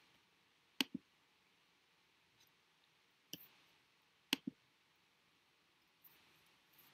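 Computer mouse clicks: a few sharp clicks, a pair about a second in, one more near the middle and another pair shortly after, over faint room tone.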